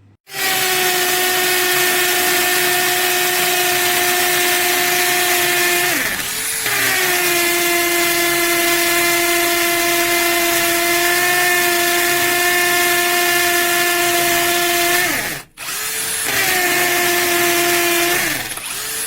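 Einhell 18V brushless cordless combi drill running at a steady speed with a steady whine. It runs three times, spinning down and stopping briefly about six seconds in and again about fifteen seconds in.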